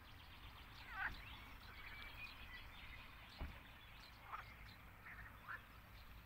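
Faint outdoor background with a few short, faint animal calls: one about a second in, more near the end, and a soft thump near the middle.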